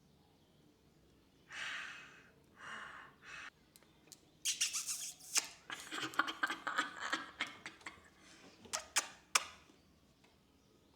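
Close-up sounds of lip oil being applied: two short breathy hisses, then several seconds of quick wet clicks and rustles from the applicator and the lips pressing together.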